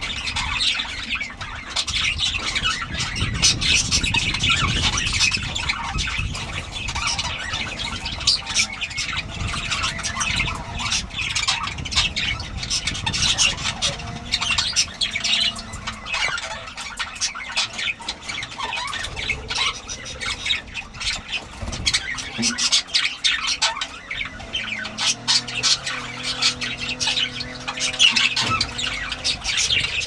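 Budgerigars chattering and squawking without pause, many short high calls overlapping.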